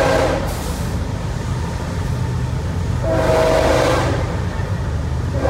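Train horn sounding a chord of steady tones: one blast fades out just at the start and another lasts about a second roughly three seconds in. Both are heard from inside a moving car, over steady road and engine rumble.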